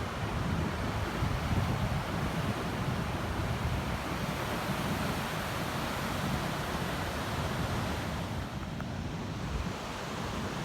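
Atlantic Ocean surf breaking and washing ashore in a steady rush, with wind rumbling on the microphone.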